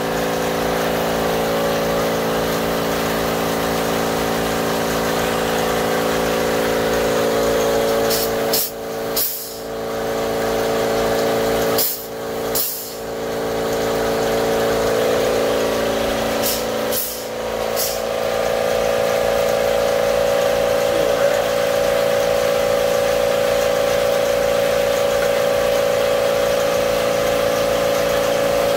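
A steady machine hum of several even tones, briefly dropping out with sharp clicks a few times around the middle.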